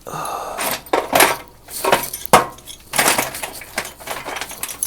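Loose nails and small metal hardware clattering and clinking as they are rummaged through in a toolbox, with a few sharper knocks, the loudest about a second and two seconds in.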